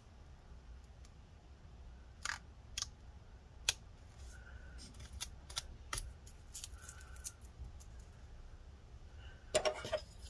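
Scattered light clicks and ticks of hand work on a laptop battery as its adhesive strips are slowly pried and peeled off, with a short rapid cluster of clicks near the end.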